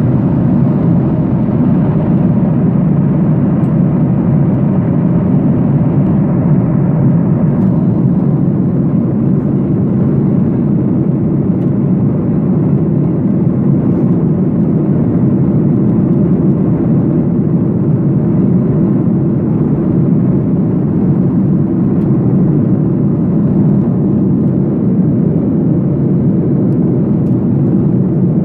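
Steady airliner cabin noise: an even, low hum of the engines and rushing air heard from inside the passenger cabin, with no change in level.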